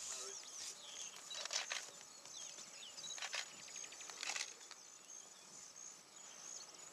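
Bush ambience: birds chirping and a steady high insect trill, with three short rustling noises.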